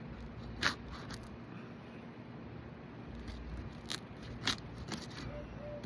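Brittle asphalt shingles being pried up off the roof, their sealant strips breaking loose with several sharp cracks and crunching scrapes, the loudest crack under a second in.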